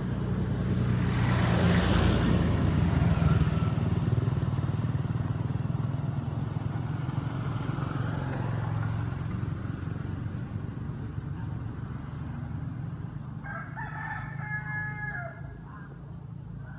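A motor vehicle passes on the road, loudest two to three seconds in and then slowly fading, over a steady low engine hum. Near the end a rooster crows once.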